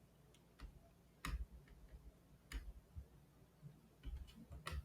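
Faint, irregular clicks and soft low knocks, a handful spread over a few seconds.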